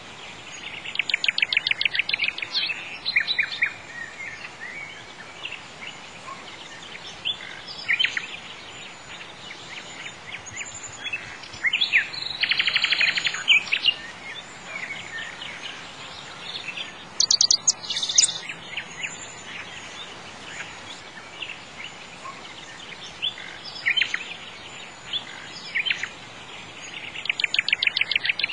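Songbirds singing: fast trills lasting a second or two, about a second in, around twelve seconds in and again near the end, with shorter chirps between, over a steady faint hiss.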